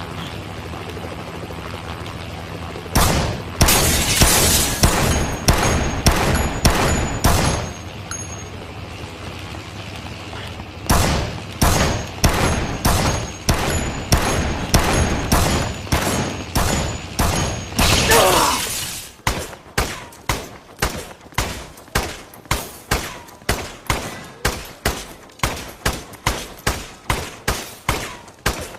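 Colt M1911 pistol shots in strings: about eight shots a few seconds in, a pause, another dozen or so, then a long run of evenly spaced shots about two a second, each with a short echoing tail.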